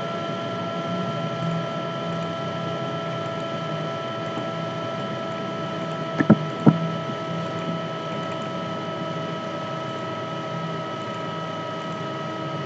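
Steady electrical hum and hiss of the recording setup, with two sharp computer-mouse clicks close together about six seconds in.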